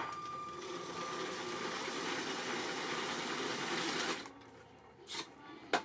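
Electric Lego train motors whirring and the train's plastic wheels running over curved Lego track, a steady rolling noise from a locomotive driven by two train motors. The noise drops away about four seconds in, followed by two short clicks near the end.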